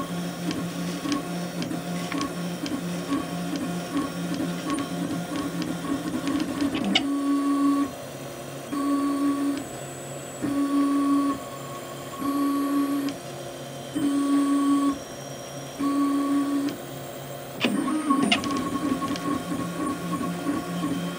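Prusa Mendel RepRap 3D printer's stepper motors whining as the print head moves while printing a calibration cube. About a third of the way in, the sound changes to a regular back-and-forth: a steady tone on each pass, roughly every two seconds, with short quieter gaps between. Near the end it returns to busier, continuous movement, with a click at each change.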